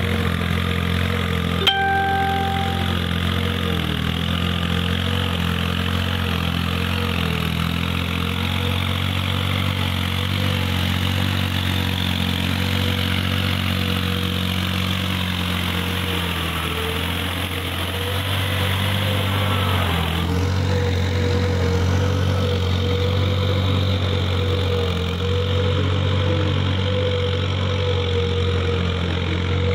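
Tractor diesel engine running steadily while its cage wheels churn a flooded paddy field, with a sharp click about two seconds in.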